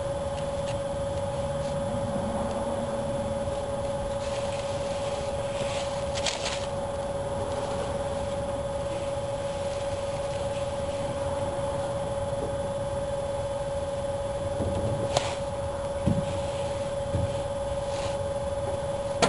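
Steady machine hum with one constant tone, from an unseen motor or appliance, with a few short clicks and light rustles from vinyl roof material being rolled and smoothed over a car roof.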